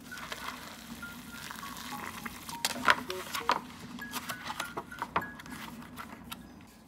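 Hot water poured from a kettle into a paper cup of instant noodles, a steady hiss for about two and a half seconds. Then the foil lid crinkles and clicks as it is folded shut and pressed down. Soft background music with short plinking notes plays under it.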